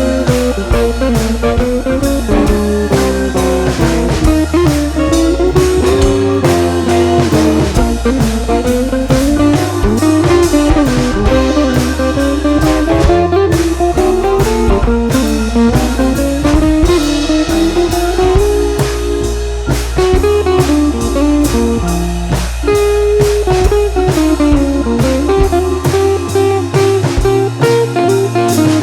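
Blues-style instrumental music: an electric guitar line winding up and down over a steady drum-kit beat.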